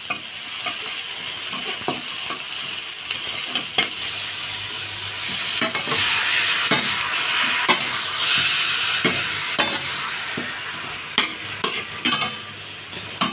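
Food sizzling in hot oil in a stainless steel wok: diced onion at first, then marinated chicken pieces from about four seconds in. A metal spatula stirs and scrapes the food, clinking against the wok about once a second, and the sizzle fades toward the end.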